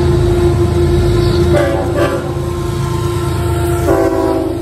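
Florida East Coast Railway diesel freight locomotive passing close by with a steady engine rumble, sounding its air horn in two blasts, about a second and a half in and again near the end.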